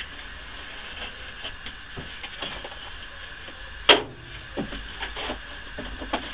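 Light clicks and scrapes of cardboard and tools being handled, with one sharp knock about four seconds in, over a steady workshop hum.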